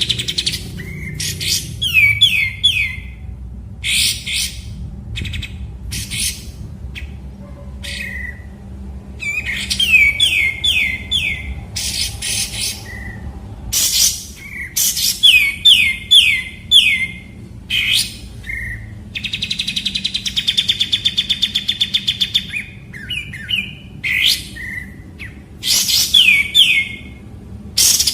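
Kapas tembak bulbul singing: repeated short phrases of quick, falling whistled notes mixed with sharp high chirps, with a fast rattling trill about two-thirds of the way through.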